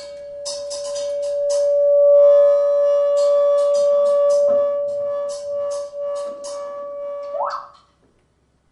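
Experimental electronic music: a loud, steady, pure-sounding tone with a fainter higher tone over it and quick irregular clicking. About seven seconds in the pitch sweeps sharply upward, and the sound cuts off.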